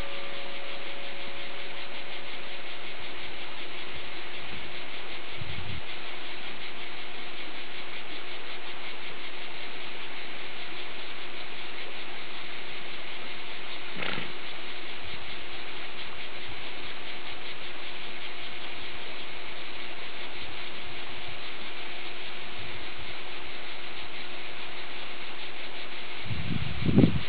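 A steady, even hiss with a faint constant hum under it, and a single click about halfway through. Near the end, low irregular rumbles of wind on the microphone.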